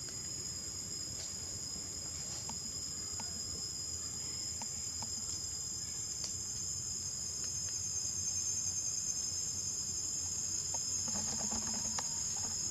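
Steady high-pitched drone of a forest insect chorus, holding two constant shrill pitches, with a few faint scattered ticks and a brief rustle near the end.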